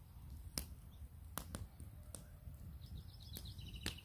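Wood campfire crackling: about six sharp, separate pops over a low steady rumble. A bird chirps a quick run of notes near the end.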